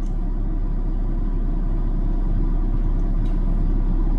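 A steady low rumble that grows slightly louder, with a faint steady high tone over it.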